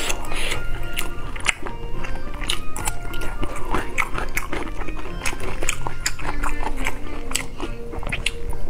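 Close-miked eating sounds: crisp lettuce leaves crinkling and snapping under the fingers, with wet sharp clicks, and a bite near the end, over background music.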